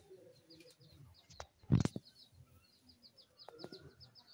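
A small bird chirping in a quick run of short, high notes repeated over and over. A loud knock comes a little under two seconds in, with a few fainter clicks around it.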